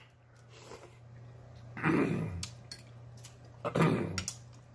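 Close-miked chewing of a mouthful of extra-spicy instant noodles, with a metal fork clicking against the bowl. About two seconds in and again near the end come two short throaty splutters as the spicy noodles catch in the throat.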